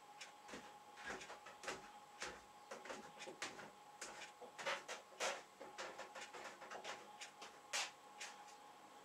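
Light, irregular scrapes and clicks of hand work as Araldite epoxy glue is spread onto a small wooden block, with a faint steady hum underneath.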